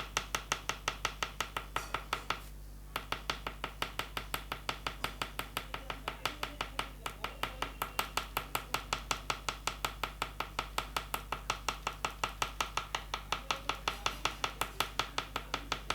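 Oil pastel stick tapping on paper to make dots, in a fast, even run of about five taps a second with a brief pause about two and a half seconds in.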